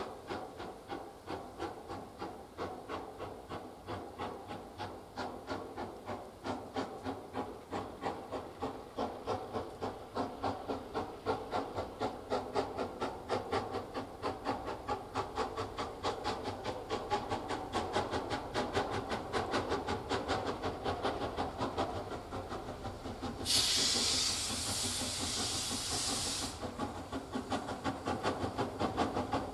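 Steam locomotive approaching under power, its exhaust beating in an even rhythm that grows a little louder. About three-quarters of the way through, a loud hiss of escaping steam lasts about three seconds and is the loudest sound.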